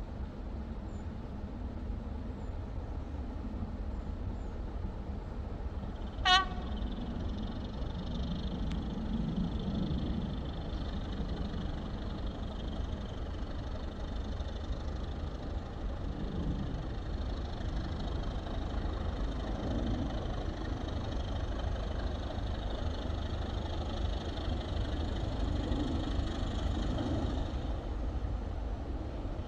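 Five diesel locomotives, led by Class 25 D7535, working a train with a steady low engine rumble that builds slowly as it approaches. About six seconds in, a single short horn toot sounds.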